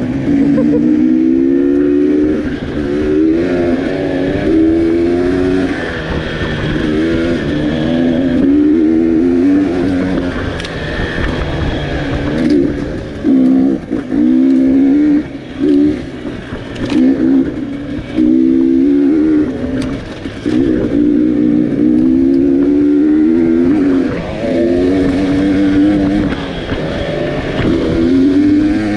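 Dirt bike engine on a trail ride, revving up in rising surges and easing off again and again as the throttle is opened and closed, over a steady low rumble.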